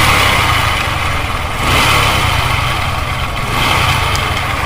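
Bajaj Discover 125's single-cylinder four-stroke engine running with a bad mechanical noise from the top end, the sign of a worn large camshaft bearing in the cylinder head with the camshaft binding.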